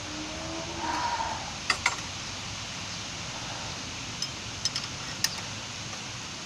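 Metal hand tools clinking against motorcycle parts in a few sharp clicks, twice close together and then a small cluster later, over a steady background hum.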